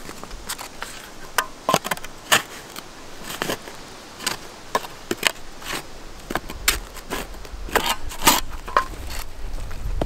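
Small spade scraping and clinking through gritty ash and stones in a fire pit, with a hand brush sweeping the ash. The sound comes as irregular sharp scrapes and knocks, sometimes several a second.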